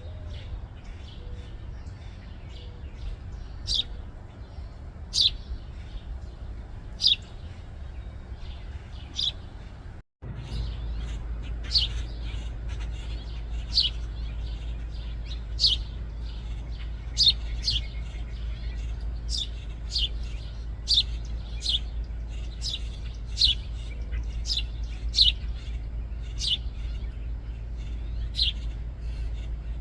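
House sparrows chirping: short, sharp single chirps repeated every second or two, coming more often in the second half, over a steady low rumble. The sound cuts out completely for a moment about ten seconds in.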